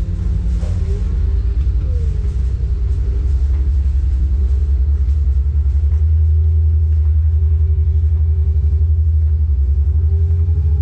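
Power wheelchair being driven over a hard floor: a loud, steady low rumble from the wheels and frame picked up through the chair-mounted camera, with a faint electric drive-motor whine that shifts slightly in pitch. The rumble grows louder partway through as the chair picks up speed.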